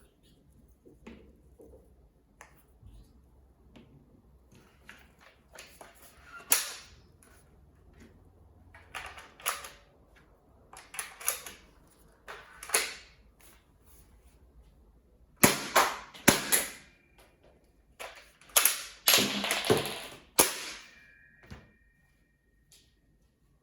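Toy sawed-off shotgun (JH 2028) being worked: a string of sharp plastic clacks and snaps, a few at a time with pauses between, loudest and closest together about two-thirds of the way in.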